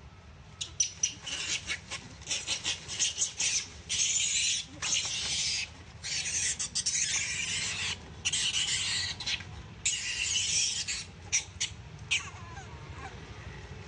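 Infant long-tailed macaque crying in high, shrill screams. It starts with a run of short squeals, builds into longer screams of about a second each, and ends with a few short squeals near the end.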